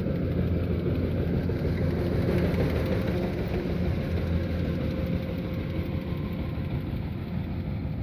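Rice combine harvester's engine running steadily, a low even drone.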